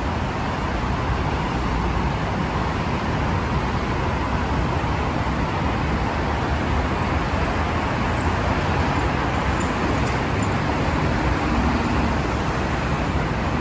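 Steady road traffic, a continuous rush of cars and other vehicles whooshing past.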